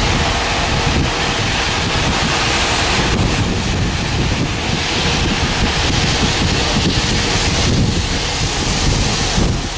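Loud wind buffeting the microphone, a steady rushing that covers most else, with goods wagons and a brake van rolling slowly past underneath it.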